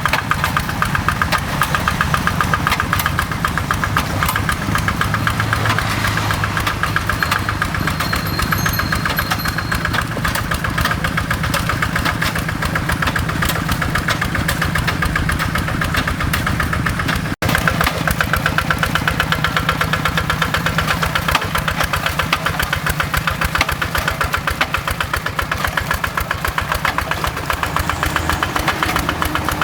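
Kubota RD85 DI-2S single-cylinder diesel running steadily with a fast, even knocking beat. The sound breaks off for an instant about 17 seconds in.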